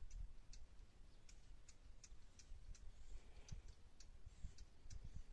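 Faint, irregular small clicks and ticks from a hand working a wooden trigger stick and string snare set into the soil, over a low rumble.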